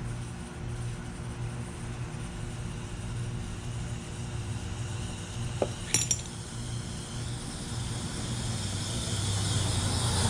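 A single sharp metallic clink about six seconds in, with a faint click just before it: a small metal part or tool handled during the compressor teardown. A steady low hum runs underneath, and a hiss builds up in the last few seconds.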